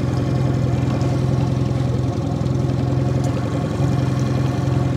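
Small outboard motor running steadily at low trolling speed.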